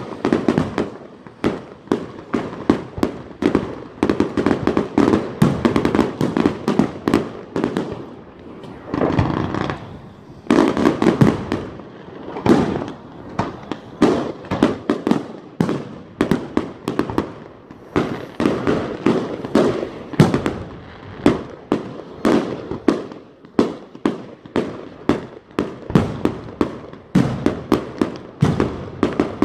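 Aerial fireworks going off in rapid succession: a dense run of bangs and pops, several a second, as shots burst overhead, with a short lull about a third of the way in.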